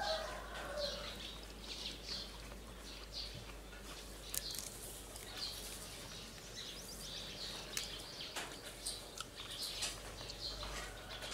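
Small birds chirping repeatedly, with a short rapid trill of chirps about halfway through and a few faint sharp clicks.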